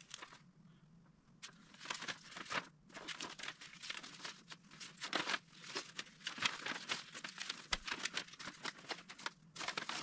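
Paper instruction sheets rustling and crinkling as they are handled and their pages turned, a run of quick rustles starting about a second and a half in and stopping just before the end.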